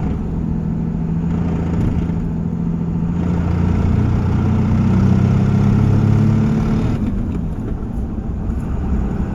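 2001 Cummins 5.9-litre turbo-diesel engine running, its note climbing from about three seconds in as it is given more throttle, then dropping back about seven seconds in. The owner hears a rattle in it, almost like an exhaust leak, when driving.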